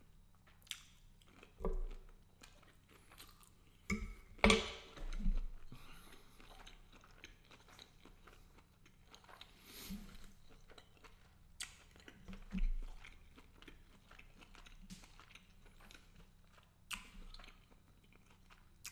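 Close-miked chewing of a mouthful of garlic butter shrimp and angel hair pasta, with irregular wet mouth clicks and smacks and a few louder bumps, the biggest about four seconds in.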